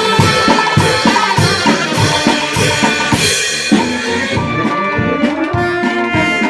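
Brass band with drums playing a pasodoble. A steady beat with cymbal crashes comes about every 0.6 s, then the cymbals drop out a little over halfway and held brass notes carry on over lighter drum strokes.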